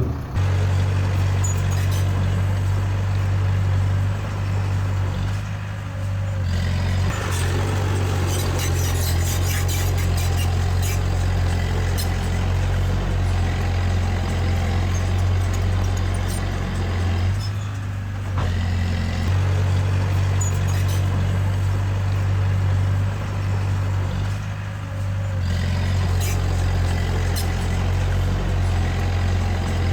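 A small crawler bulldozer's diesel engine runs steadily under load with a deep drone. The engine note drops briefly three times, and there is some light clicking about a third of the way in.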